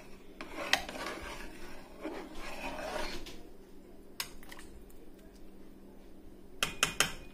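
A metal ladle stirring gumbo in a large pot, with a rubbing, scraping stretch early on and a few sharp clinks against the pot, the loudest cluster near the end.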